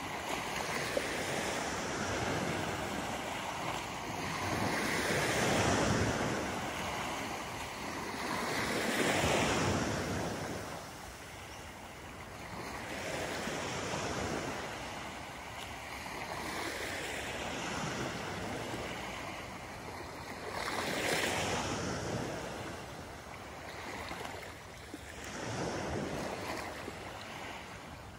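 Small waves washing onto a sand beach, the surf rising and falling every few seconds.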